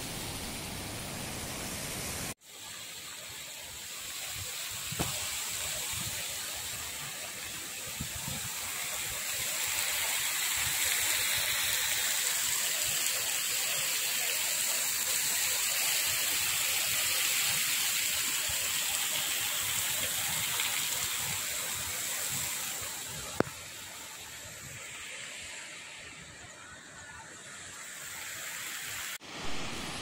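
Steady rushing hiss of a high waterfall plunging into a gorge, heard from the cliff top, with a few faint clicks. The sound drops out for an instant about two seconds in and changes again near the end.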